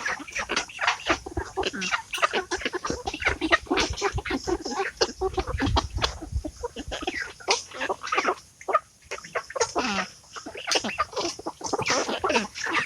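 A flock of young Rhode Island Red chickens, close to four months old, clucking and calling over one another without a break.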